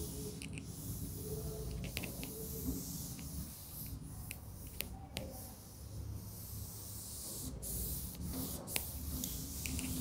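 Cloth wiping chalk off a blackboard: a faint rubbing hiss with a few light clicks scattered through it.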